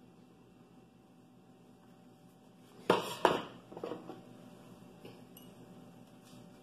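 Tableware being handled on a table: two sharp clinks about three seconds in, then a few softer knocks, as a metal spoon and small glass dishes are set down and picked up.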